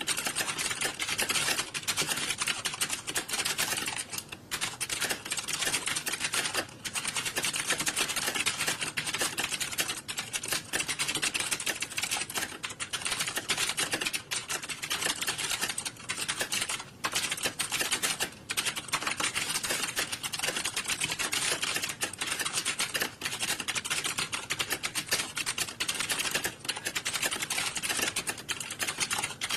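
Many computer keyboards typed on at once, a dense, unbroken patter of overlapping key clicks with only brief dips.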